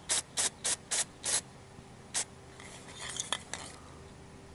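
Aerosol can of weld-through primer sprayed in six short spurts, five quick ones in the first second and a half and one more a little later, the can nearly empty. Faint rattling and a couple of clicks follow about three seconds in.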